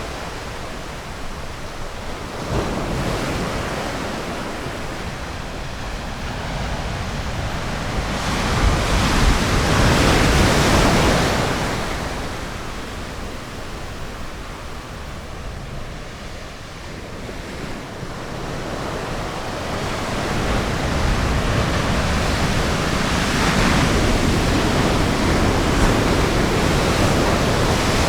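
Ocean surf breaking on a beach: a steady wash of waves that swells to a loud crash about ten seconds in, eases off, then builds again in the last third.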